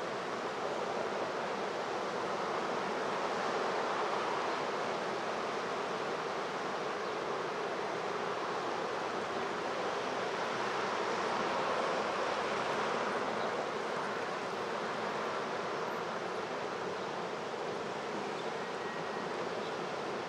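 Steady rush of a river in flood, fast turbulent water churning past the embankments and over a weir.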